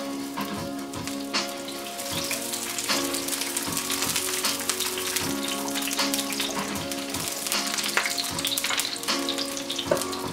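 Chopped yellow onion sizzling and crackling steadily in hot olive oil in a frying pan.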